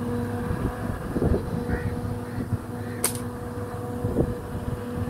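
A steady low mechanical hum, with wind buffeting the microphone in low thumps about a second in and again near the end, and a brief high hiss about three seconds in.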